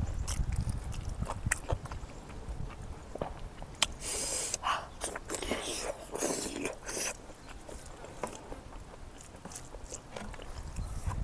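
Close-miked chewing and biting of smoked pork fat eaten by hand, with irregular wet clicks and mouth smacks and a few longer noisy sucking sounds in the middle.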